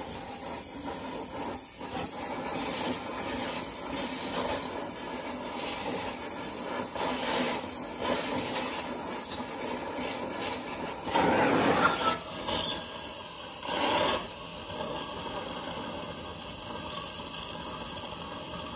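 Gas torch flame hissing steadily as it heats a cast-iron cylinder head around a broken exhaust manifold bolt, with two louder spells a little past the middle.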